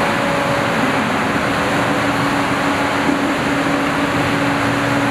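Steady mechanical hum over a constant hiss, one low tone held throughout without change.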